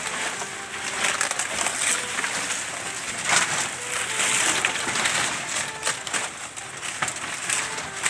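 Fresh banana leaves rustling and crackling as armfuls are handled and pushed into a wooden slatted feeding rack.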